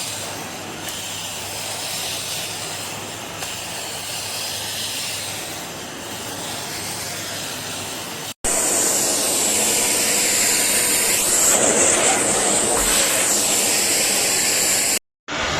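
Bagged vacuum cleaner, the Philips Series 3000 Performer Compact (900 W), running with a steady rush of air. About eight seconds in it cuts to a louder run with a steady high whistle, which cuts off shortly before the end.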